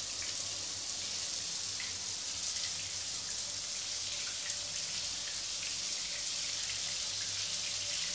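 Rain falling steadily: an even hiss with faint drop ticks scattered through it.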